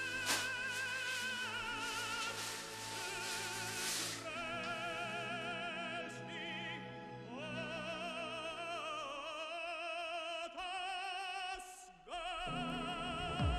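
Operatic singing: a high voice with strong vibrato holding long notes over music, breaking off briefly near the end before one more held note.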